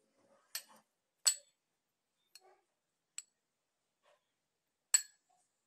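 Metal spoon clinking against a small glass bowl as it stirs a dry ground-seed powder: five short, sharp clinks, the loudest about a second in and near the end.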